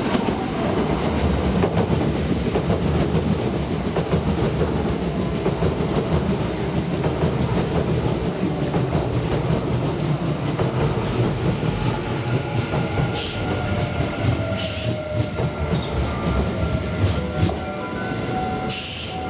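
Kintetsu 5800-series electric train running past along the platform, its wheels rumbling and clacking on the rails. In the second half a tone falls in pitch, with a few short hissing bursts near the end.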